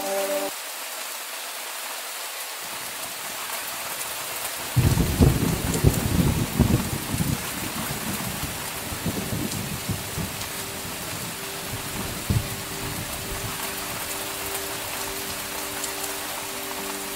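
Steady rain falling, with a sudden clap of thunder about five seconds in that rolls on as a rumble for several seconds before fading back under the rain.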